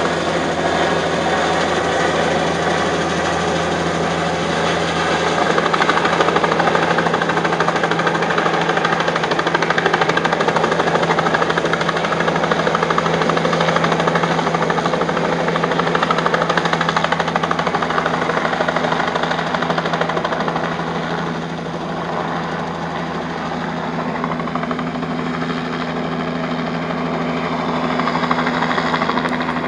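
Helicopter flying low overhead, its rotor beating rapidly and steadily over the engine's running hum. The sound eases a little about two-thirds of the way through.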